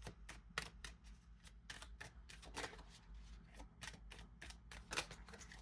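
A deck of tarot cards being shuffled by hand: a quiet run of short, irregular card snaps and taps, about three or four a second.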